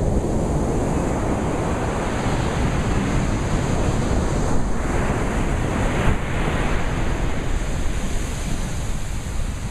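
Ocean surf washing on a beach: a steady rushing noise that swells once near the middle, with some wind.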